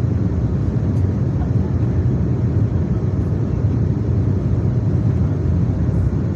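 Steady low noise inside the cabin of an Embraer E190-E2 airliner: the engines and rushing air of the jet on the move, even and unbroken.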